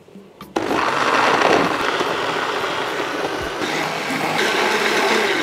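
Electric blender switched on about half a second in and running steadily, pureeing sliced ginger and lemongrass with water.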